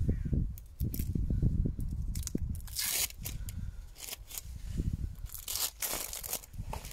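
Brown masking tape being peeled and torn off a cured epoxy-and-fibreglass patch on a sailboat keel, exposing the peel ply: an uneven crackling tear, loudest about three seconds in and again near the end.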